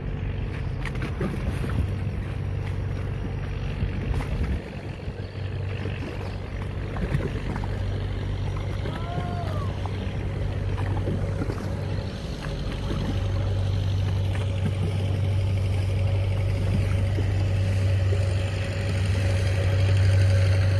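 Diesel engine of a fishing trawler running as the boat motors past under way, a steady deep drone with a thin steady higher tone over it. It grows louder in the second half as the boat comes closer.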